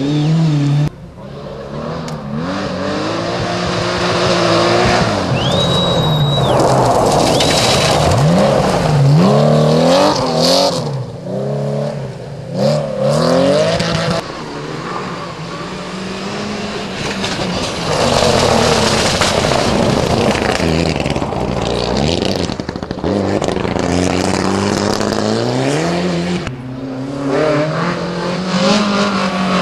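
Rally car engines revving hard and dropping back through gear changes as several cars pass in turn on a dirt stage. The engine note climbs and falls again and again.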